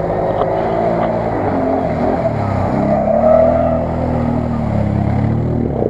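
ATV engine revving as the quad ploughs through shallow water, with splashing spray. The engine pitch drops and climbs again about two seconds in, and once more near the end.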